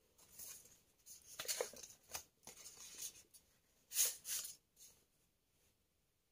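Sheets of paper being handled, rustling in a few irregular bursts, the loudest about four seconds in.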